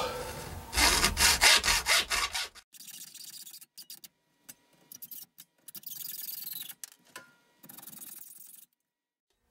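Hand hacksaw cutting a metal plate held in a vise, taking small trimming cuts around a tight curve. A run of loud rasping strokes about a second in, then fainter stretches of sawing that stop shortly before the end.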